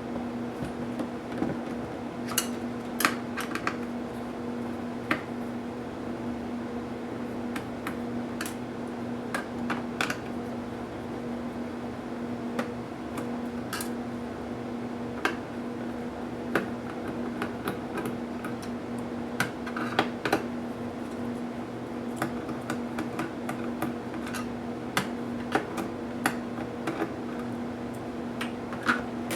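Scattered small clicks and taps of plastic and metal parts being handled during disassembly of an HP dv8000 laptop, a few dozen irregular ticks over a steady low hum.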